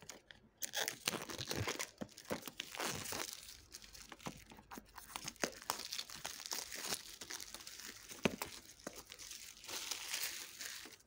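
Clear plastic shrink wrap being torn and peeled off a smartphone's cardboard retail box, crinkling and crackling with many small sharp snaps.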